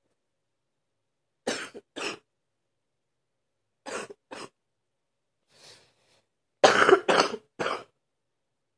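A person's deep morning cough in short fits: two coughs, then two more, a faint one, and three louder coughs in quick succession near the end.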